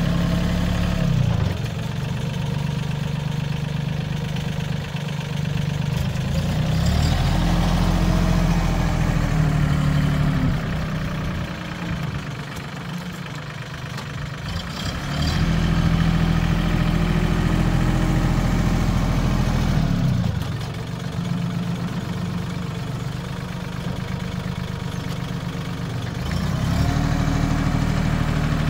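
Mahindra compact tractor's diesel engine running, revving up and settling back three times as the front-loader bucket pushes into the dirt along the fence.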